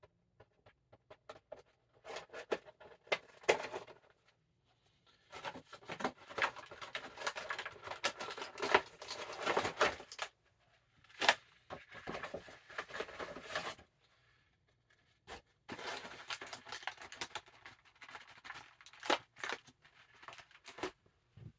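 Action-figure packaging being torn and pulled open by hand: bursts of tearing and crinkling of cardboard and plastic, in several spells with short pauses between them.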